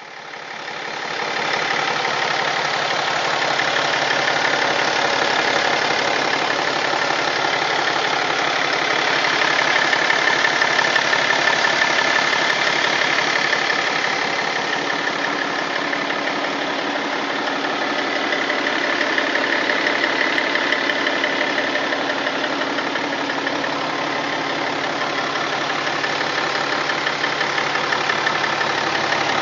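BMW M57 straight-six diesel engine running steadily, with an extraneous noise whose cause the owner cannot find.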